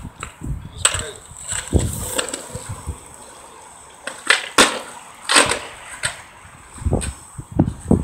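Skateboard rolling over asphalt: a low rolling rumble broken by sharp, irregular clacks and knocks of the board about once a second.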